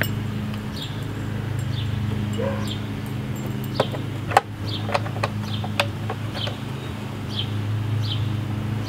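A steady low hum runs throughout while a bird chirps over and over in short, falling notes. A few sharp plastic clicks come around four to six seconds in, as the air-filter cover is fitted back onto a small mower engine.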